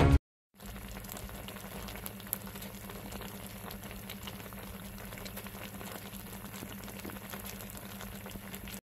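Sarmale (cabbage rolls) in tomato sauce bubbling and sizzling in a pan: a steady low fizz with scattered small pops and a low steady hum under it.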